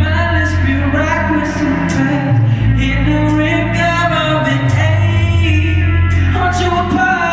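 Recorded dance music with a singing voice over a heavy bass line and a steady beat.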